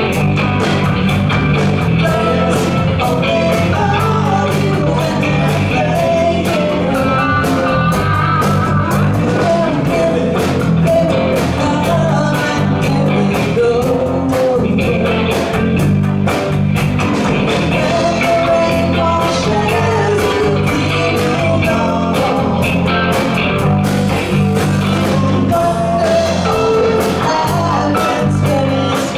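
A live rock band playing loudly: electric guitars over bass guitar and a drum kit keeping a steady beat.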